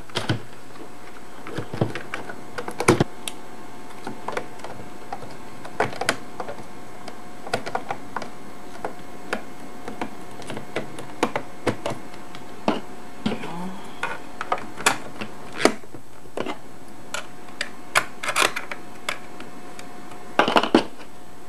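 Irregular light clicks and knocks of hands handling the small metal case of a portable tape recorder, with a small screwdriver working the screws of its base panel, over a faint steady hum.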